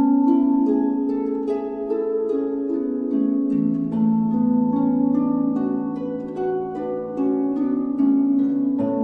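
Calm instrumental background music: a stream of plucked, harp-like notes ringing over held low tones.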